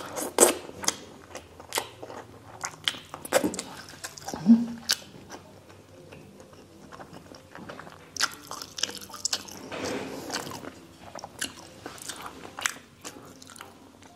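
Close-miked wet chewing and lip smacking as a mouthful of saucy braised pork and rice is eaten by hand, with many short sharp clicks scattered throughout.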